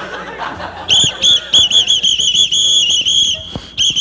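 A whistle blown in a string of short, sharp toots, about four or five a second. About three seconds in comes one longer held blast, then a short break before the toots start again.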